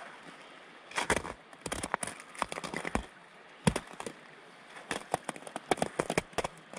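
Footsteps crunching in crusted snow: irregular crackly crunches, several a second in places, with short pauses between.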